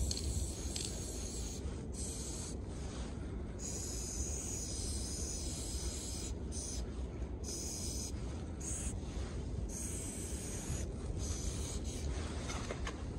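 Aerosol spray paint can hissing in repeated bursts of varying length, with short breaks as the nozzle is released between strokes, over a steady low rumble.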